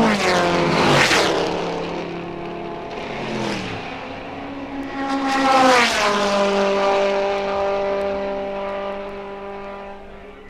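Racing cars passing at speed one after another, each engine's pitch dropping sharply as it goes by. The loudest pass comes about halfway through, and that car's engine note then holds steady as it fades into the distance.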